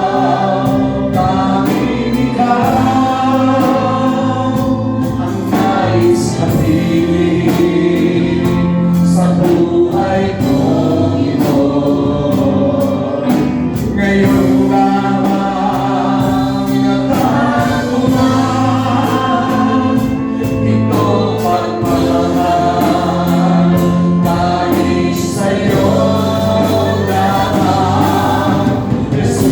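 Church congregation singing a Tagalog worship song together, held notes over a steady beat from the accompaniment.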